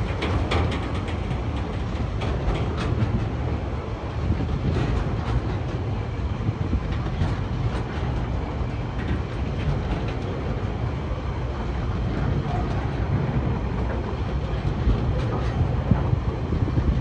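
Empty log wagons of a freight train rolling past: a steady low rumble of steel wheels on the rails, with irregular clicks and clanks from the wheels running over the track.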